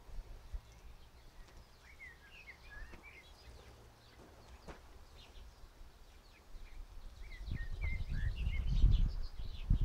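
Small birds chirping in short twittering phrases, in two spells. A low rumble swells over the last few seconds and is the loudest sound.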